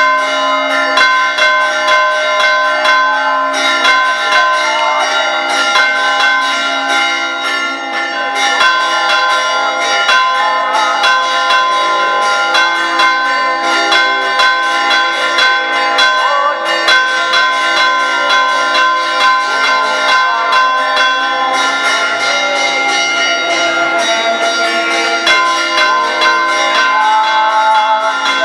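Church bells ringing continuously, struck rapidly and overlapping, so their tones hang over one another.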